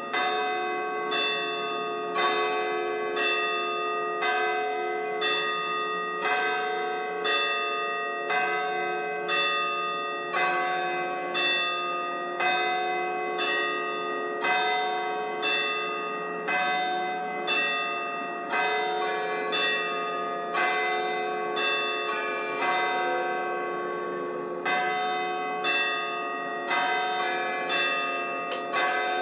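Church bells tolling in a steady, even rhythm of about one stroke a second, each stroke ringing on under the next so the tones overlap.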